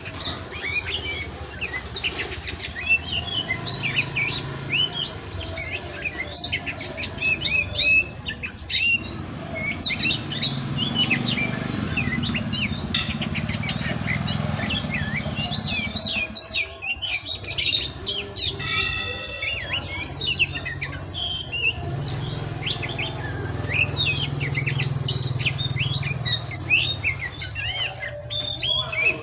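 Oriental magpie-robin (kacer) singing a fast, varied stream of chirps and whistles, with a harsh buzzy note about two-thirds of the way through. A steady low hum runs underneath.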